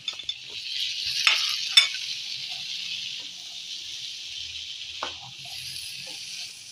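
Black chickpea masala sizzling in a non-stick kadai while a spatula stirs it. The hiss is steady and a little louder in the first couple of seconds. Two sharp knocks of the spatula on the pan come between one and two seconds in, and a lighter one about five seconds in.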